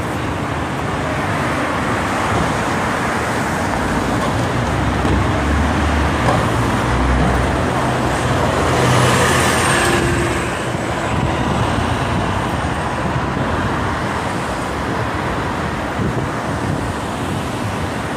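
Steady downtown street traffic, with a city bus's engine rumbling as it passes close by and pulls away about halfway through, when the sound is loudest.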